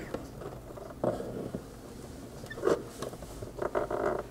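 Flathead screwdriver scraping and clicking against the plastic of a car tail-light housing as it is worked into the seam to pry the housing out. There are a few faint, separate scrapes and knocks, about a second in and again in the second half.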